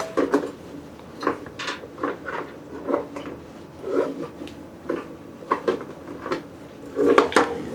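Handling sounds as the charging cable is fed through a hole in the photo booth's panel: scattered light knocks, taps and rubbing of the cable and parts.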